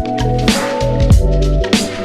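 Background music with a steady electronic beat: deep kick drums that drop in pitch about twice a second, sustained bass and chord notes, and crisp cymbal or snare hits.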